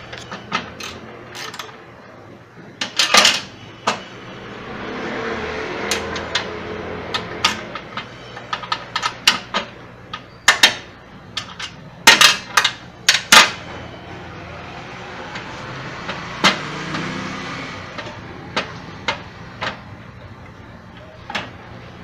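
Hand tools clinking and knocking against the steel mounting plate and shaft assembly of a washing machine while the assembly is unbolted with a ratchet wrench and worked loose. There is a quick run of sharp knocks about twelve seconds in, and two longer stretches of rubbing noise.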